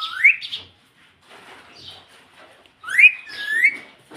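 Indian ringneck parrot whistling: short rising whistles at the start and a louder pair about three seconds in, with soft scratchy chatter between.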